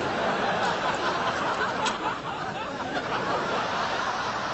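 Studio audience laughing, a steady mass of many voices.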